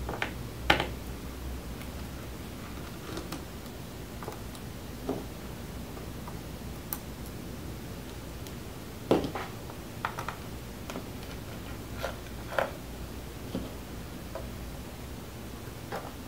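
Scattered light clicks and taps of a small Phillips screwdriver and tiny screws being handled while unscrewing a laptop's bottom case, the sharpest about a second in and at about nine seconds.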